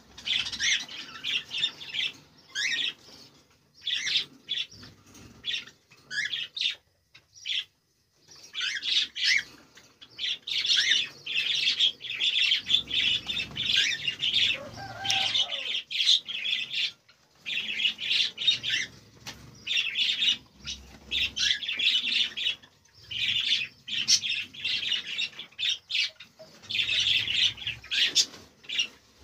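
Cockatiels chirping and squawking in rapid bursts with short pauses, mixed with wing flutters in the cage.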